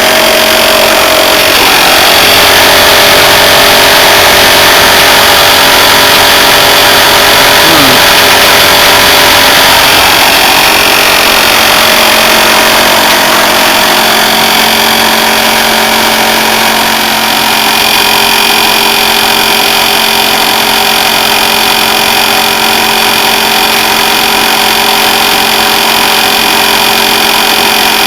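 A TECO window air conditioner's rotary compressor runs with a loud, steady hum. Its condenser coil is crushed, so head pressure cannot bleed off and the compressor labours under mounting pressure.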